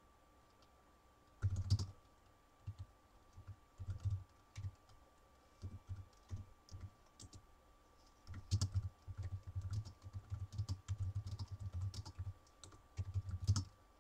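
Typing on a computer keyboard in irregular bursts: a short run about a second and a half in, scattered keystrokes, then a longer steady run of typing in the second half.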